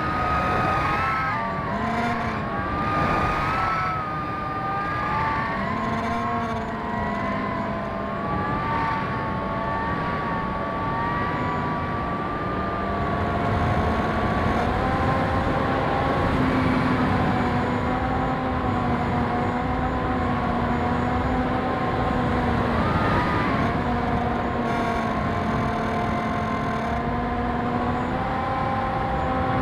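RC plane's motor and propeller whining as heard from the onboard camera, the pitch shifting up and down with throttle and airspeed, over steady wind rush across the airframe.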